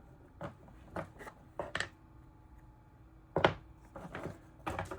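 Small tools and parts being picked up and set down on a workbench while setting up a micro limit switch for soldering: a handful of irregular light clicks and knocks, the sharpest about three and a half seconds in.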